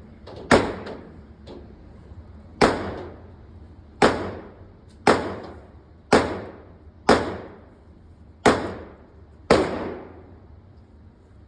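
Gunshots on an indoor range: eight sharp reports roughly a second apart, each with a short echoing tail.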